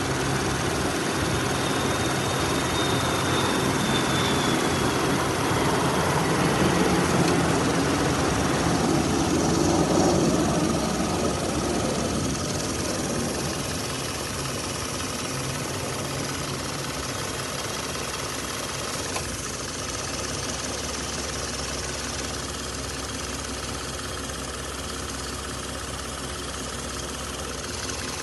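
A running engine or motor, steady and continuous. It is louder for about the first twelve seconds, then settles to a lower, even level.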